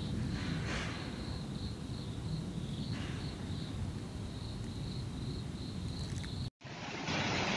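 Insect chirping in a steady pulsing trill, about two to three pulses a second, over a low outdoor rumble. Near the end it cuts off abruptly and a louder, steady rushing noise takes over.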